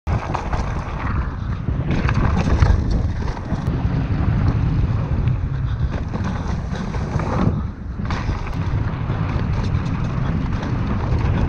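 Wind buffeting an action camera's microphone during a fast e-mountain-bike descent, over a dense rumble of tyres on a dirt and gravel trail with scattered rattles and knocks from the bike.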